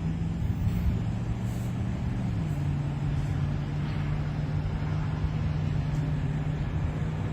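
Motor vehicle engine running at a steady pitch over a low rumble, the pitch dropping slightly a little over two seconds in.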